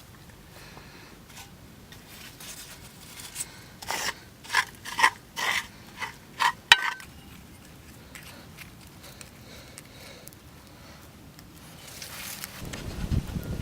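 A run of about seven short, quick scraping strokes, then a low rushing noise that rises near the end.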